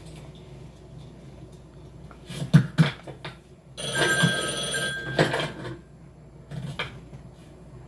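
A ringing, telephone-like tone lasting about a second, with a brief break partway through, in among several knocks and clatter.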